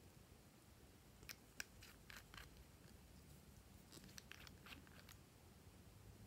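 Faint, sparse clicks and light scrapes of small glass nail-polish bottles and their screw-on brush caps being handled, in two short clusters; otherwise near silence.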